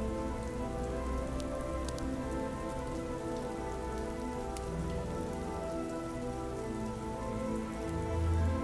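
Steady soft rain mixed with ambient music of long held, overlapping notes. A few faint clicks sound through it, and a deep note swells near the end.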